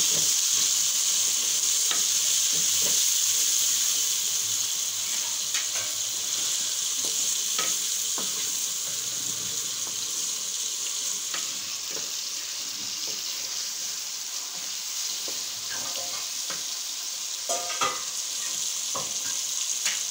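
Sliced tomatoes, onion and green chillies sizzling in hot oil in a metal karahi, stirred with a wooden spatula that scrapes and knocks against the pan now and then. The sizzle is steady, easing a little after the first few seconds, with a few sharper knocks near the end.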